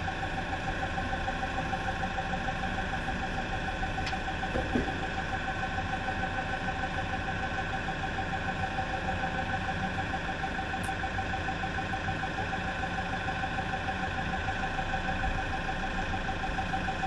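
A forklift engine runs steadily at idle with a steady whine on top, while it holds the lifted transmission pump. There is one faint clunk about four seconds in.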